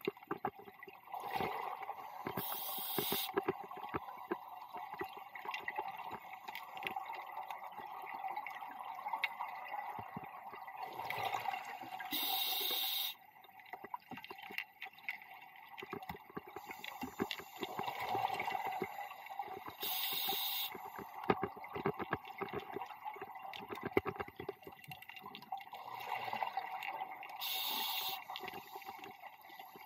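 Scuba diver breathing through a regulator underwater. A short hiss of inhalation comes four times, about every seven to eight seconds, and between breaths there is a steady crackle of bubbling.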